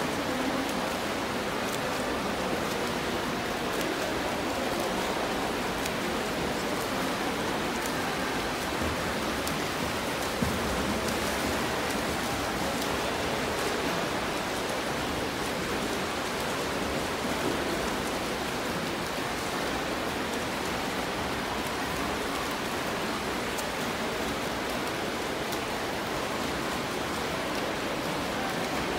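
Steady wash of splashing water from swimmers doing front crawl across several lanes of a pool, with a single sharp knock about ten seconds in.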